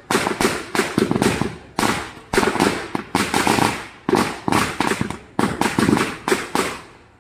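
A string of firecrackers going off on the ground in a fast, uneven run of sharp bangs, about three a second, that stops near the end.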